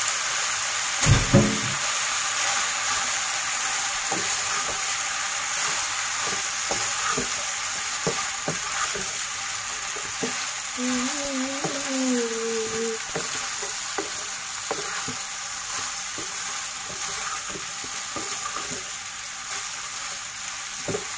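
Boiled penne sizzling in hot oil in a karahi while being stirred and tossed with a wooden spatula: a steady sizzle with light scrapes and knocks, and a heavier thump about a second in.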